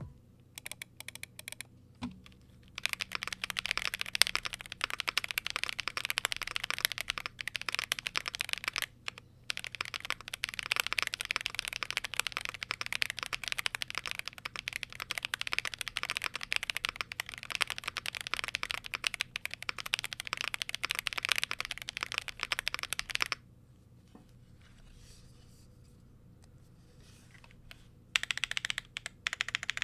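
Typing on a Yunzii AL75 mechanical keyboard: factory-lubed Yunzii Cocoa Cream V2 linear switches and doubleshot PBT keycaps on a gasket-mounted polycarbonate plate, with only case and plate foam inside (no PE foam or PET switch film), giving a clean, clacky sound. A few scattered keystrokes lead into steady fast typing, which stops for about five seconds near the end and then resumes.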